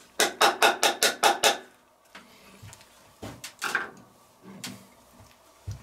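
A quick run of about seven sharp knocks in a second and a half as chopped garlic is tapped out of a small container into a stainless steel cooking pot, followed by a few softer knocks and clicks.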